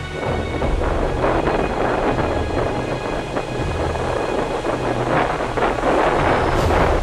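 Ocean surf breaking and washing up the beach, with wind buffeting the microphone in an irregular low rumble.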